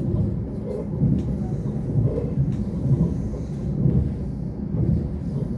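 Lastochka electric train (Siemens Desiro RUS) running along the track, heard from inside the carriage: a steady low rumble that swells and dips, with a couple of faint wheel clicks.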